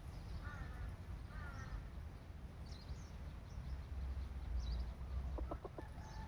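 Outdoor bird sounds over a steady low rumble: two short pitched calls about half a second and a second and a half in, a few brief high chirps later on, and a quick run of four clicks near the end.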